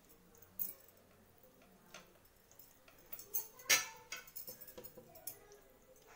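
Scattered light metallic clinks and ticks as marinated chicken pieces are handled and set on a wire grill rack, with the loudest clink a little past halfway.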